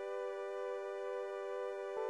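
Soft background music: sustained, gently shifting chords with a new note coming in at the very end.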